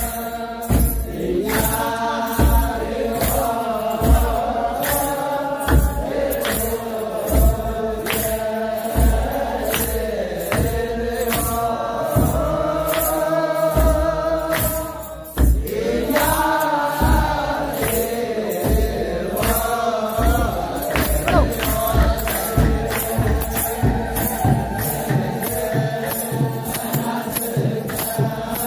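Ethiopian Orthodox church chanters singing a hymn together to an even beat of kebero drums and hand clapping. The singing briefly drops out about fifteen seconds in, then comes back in strongly.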